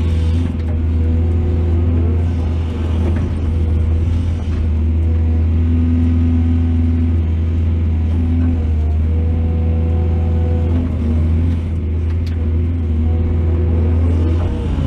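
Heavy diesel engine of earthmoving machinery running steadily, a deep drone with a steady hum above it, rising and falling a little in level.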